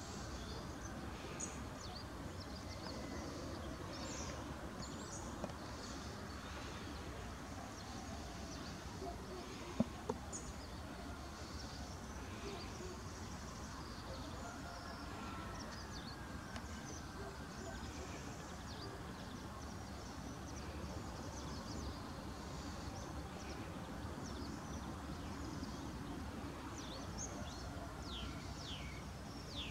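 Small birds chirping in short, high calls scattered throughout, a few of them quick falling notes near the end, over a steady low background hum. Two sharp clicks about ten seconds in are the loudest sounds.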